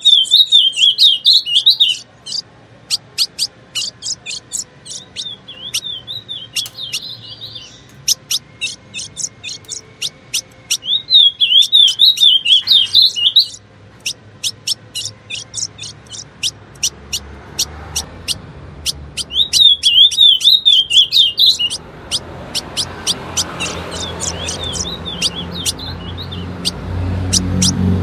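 Female ultramarine grosbeak (azulão) calling: a rapid run of sharp chip notes, broken about five times by a short warbling phrase. A low rumble builds up underneath in the second half.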